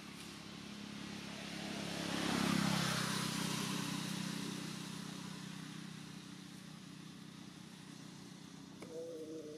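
A motor vehicle passing by: its engine hum swells to a peak about two and a half seconds in, then slowly fades away. Near the end a short wavering tone sounds briefly over the hum.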